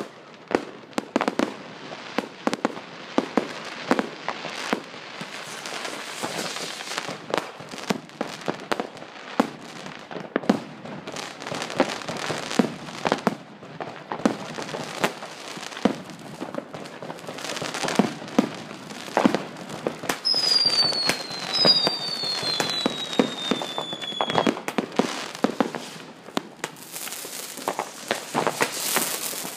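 Fireworks and firecrackers going off one after another, many sharp bangs at varying loudness. About two-thirds of the way through come two falling whistles, and near the end a hissing crackle.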